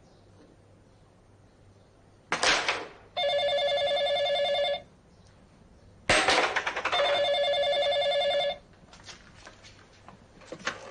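Desk telephone ringing twice, each ring a pulsing bell tone about a second and a half long. Each ring is preceded by a short, louder noisy burst.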